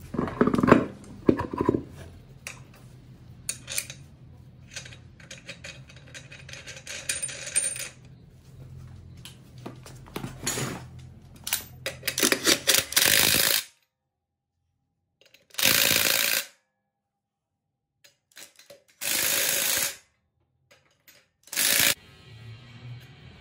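An ATV wheel is knocked onto its hub, and the metal wheel nuts clink as they are handled. Then a cordless drill runs the wheel nuts on in four short bursts of about a second each.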